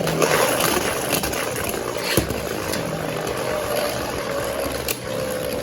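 Two Beyblade Burst spinning tops (Rage Longinus and Volcano Helios) whirring in a plastic battle stadium, with a steady spinning whir whose tone slowly sinks and a few sharp clacks as the tops collide.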